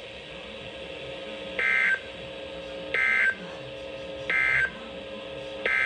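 Emergency Alert System SAME digital data bursts, harsh buzzy screeches. There are three short end-of-message bursts about 1.3 seconds apart, then a longer header burst near the end that begins the next tornado warning. Faint steady low tones sound between the bursts.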